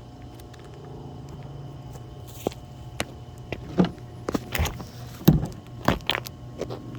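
Fireworks from several lit packs going off as a string of sharp, irregular pops, beginning a couple of seconds in and loudest about five seconds in, over a steady low hum.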